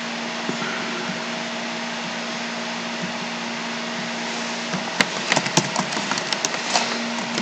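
Steady electrical hiss with a low hum on the microphone, then computer keyboard keys clicking in quick irregular runs from about five seconds in, as an address is typed.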